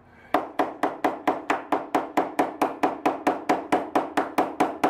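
Needle-nose pliers used as a hammer, tapping quickly and evenly at about six strikes a second, starting about a third of a second in.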